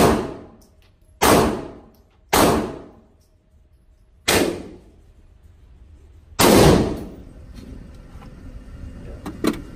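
Five gunshots fired at a paper target, each with a long echoing tail off the concrete walls of an indoor range. They come at uneven spacing of about one to two seconds, and the last is the loudest and longest.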